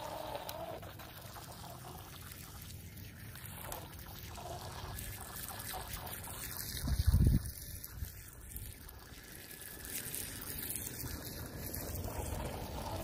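Water trickling and splashing in the spray and wake of a small electric RC jet ski running across shallow lake water. A brief low rumble about seven seconds in is the loudest moment.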